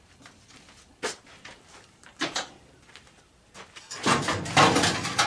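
Metal knocks on a furnace's squirrel cage blower housing: one a second in, two more a little after two seconds. From about four seconds comes a louder stretch of sheet metal scraping and rattling as the housing is worked apart.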